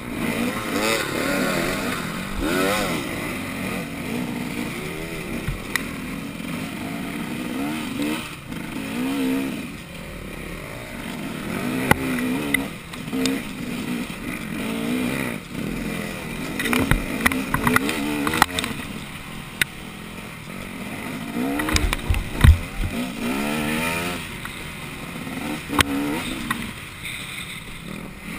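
Off-road motorcycle engine being ridden hard, its pitch rising and falling constantly as the throttle opens and closes, with scattered knocks and thumps, the loudest about three quarters of the way through.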